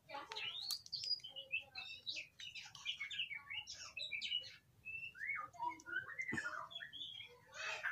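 Birds chirping: a run of short, high chirps and calls, some sliding up and down in pitch.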